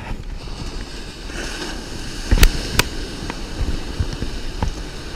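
Surf washing around the feet with a steady hiss, and two sharp knocks close to the microphone about two and a half seconds in.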